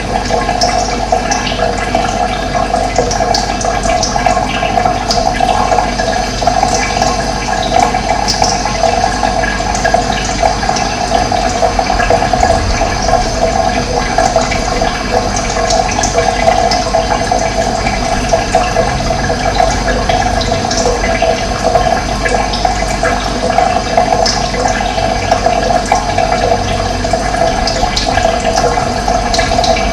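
Running water flowing steadily in a continuous rush, with short high bird chirps here and there over it.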